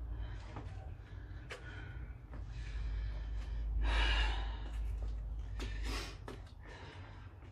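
A person breathing hard from exertion, with one long loud gasping breath swelling about four seconds in. A few short clicks and knocks sound around it.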